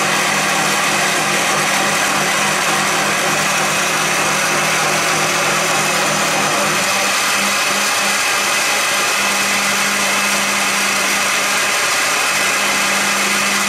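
Electric blender running at steady speed, chopping tomatoes into orange juice: a loud, even motor whir over the churning contents, its hum wavering briefly about halfway through and then settling again.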